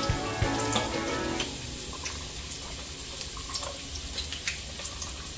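Chopped onion frying in hot oil: a steady sizzling hiss with scattered crackles and pops.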